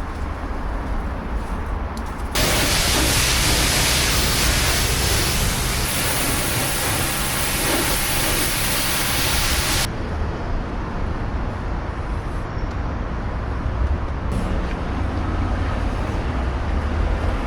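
High-pressure water spray from a coin-op car wash wand, a loud even hiss that starts suddenly about two seconds in and cuts off about ten seconds in. A low rumble runs underneath throughout.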